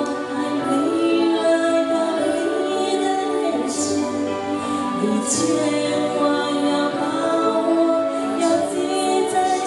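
A sung boat song (barcarolle): a voice holding long notes over accompaniment, with sharp sung 's' sounds about four and five seconds in.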